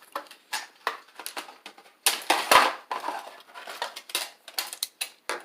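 Plastic toy parts and packaging being handled: irregular rustling and small clicks, busiest about two seconds in, as ties and strings are taken off the toy boats.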